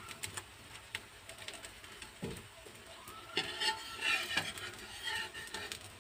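Slotted metal spatula and fork scraping and tapping against a non-stick pan as an omelette is turned, with a soft thud about two seconds in and a busier run of clicks and scrapes in the second half.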